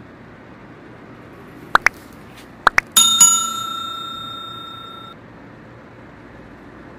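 Like-and-subscribe sound effect: two pairs of quick mouse clicks, then a bright bell ding that rings out and fades over about two seconds, over a steady background hiss.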